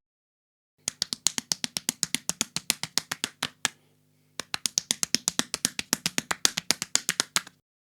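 Rapid flurry of slaps, about seven a second, in two runs of about three seconds each with a short pause between.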